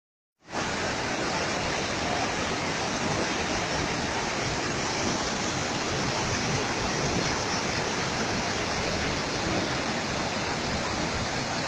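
Floodwater pouring over a low concrete weir and churning downstream: a steady, even rush of water that starts about half a second in.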